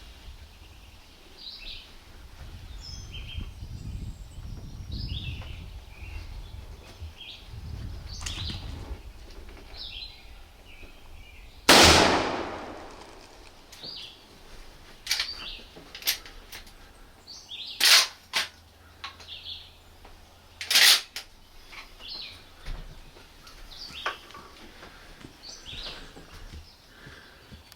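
A single shotgun blast about twelve seconds in, with a long echoing tail, as a turkey hunter shoots a gobbler at the decoy. Songbirds chirp throughout. A few sharper thumps and cracks follow over the next several seconds.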